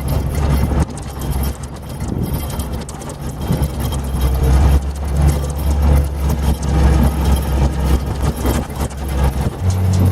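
International farm tractor engine idling with a steady low drone, the pitch stepping up slightly near the end.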